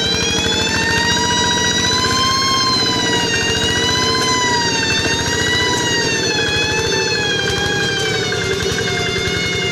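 A rice-field tractor's high 'nging' whine, its pitch slowly wavering up and down, over the steady pulsing of the tractor's engine as it works the field.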